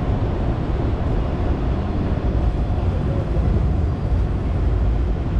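Wind buffeting the microphone: a loud, uneven low rumble with a hiss above it.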